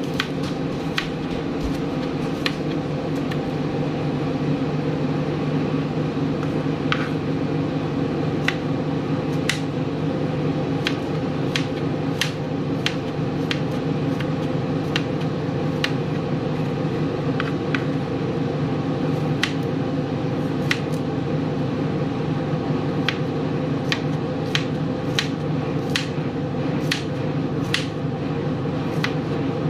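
Knife slicing garlic cloves on a plastic cutting board: sharp, irregular clicks, about one or two a second, as the blade hits the board. Under them a steady low hum.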